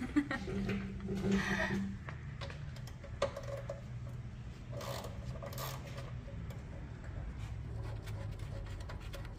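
Faint rubbing and scraping with a few light clicks, from hands and tools working at the oil drain plug and drain pan under a car, over a steady low hum.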